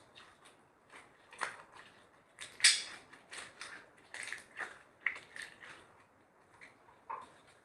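Slime being squished and stretched by hand, giving irregular sticky clicks and pops, the loudest about two and a half seconds in.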